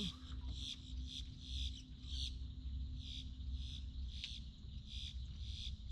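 Insect calling in a steady rhythm, short pulsed chirps about two to three times a second, over a low steady rumble.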